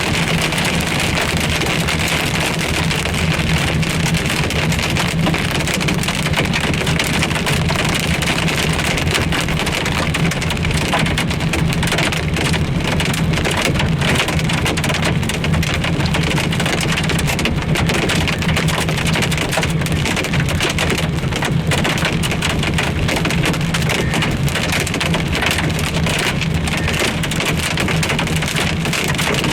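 Hail and heavy rain pelting a car's roof and windscreen, heard from inside the car: a dense, steady clatter of impacts with a steady low hum underneath.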